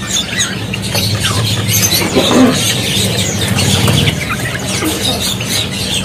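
Many caged songbirds chirping and calling at once, a dense overlapping chatter of short calls, over a steady low hum.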